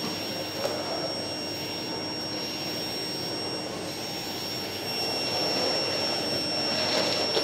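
Canister vacuum cleaner running steadily with a constant high-pitched whine, its floor head pushed back and forth over a rug.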